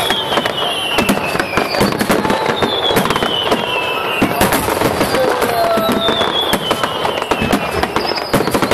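Fireworks bursting in dense, rapid cracks and bangs, with high whistles that fall in pitch recurring every second or so.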